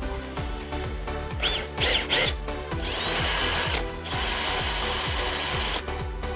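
Electric drill running at speed in two bursts, the second longer, with a high steady whine, over background music with a steady beat.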